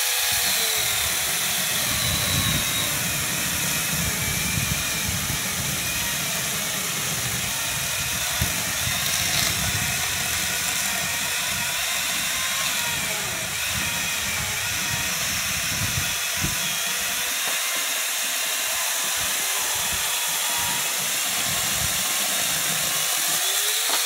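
Electric angle grinder fitted with a chainsaw bar and chain, cutting through a wooden stump. Its motor whine drops as the chain bites into the wood, runs lower and rougher through the cut, and rises back to full speed near the end as the load comes off.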